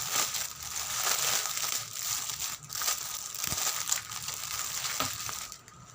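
Packaging crinkling and rustling as it is handled, with small crackles throughout.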